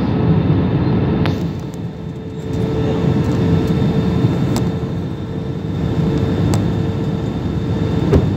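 Airbus A320 cabin noise from a window seat on approach: a steady roar of the engines and the air rushing past, with a steady hum. A few faint clicks, the clearest just over a second in.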